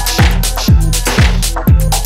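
Electronic dance track with a steady four-on-the-floor kick drum about twice a second, hi-hats ticking between the beats and held synth tones.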